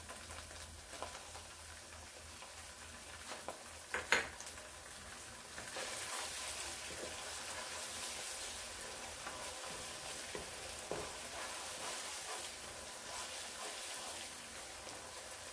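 Chopped onions and ginger-garlic paste sizzling in oil in a nonstick pot while a wooden spatula stirs and scrapes them. The sizzle grows louder about six seconds in, and there is one sharp tap about four seconds in.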